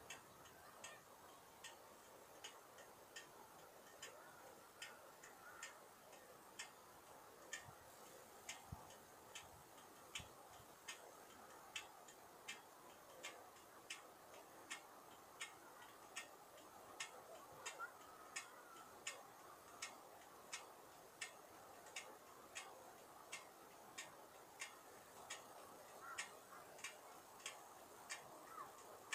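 Faint, steady ticking, about three ticks every two seconds, over a low hiss.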